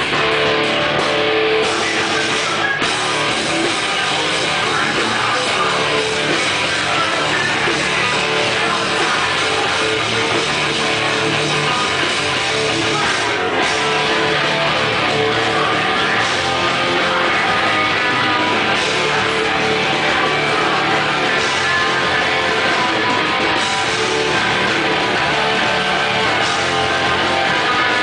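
Hardcore band playing live and loud, with electric guitar prominent.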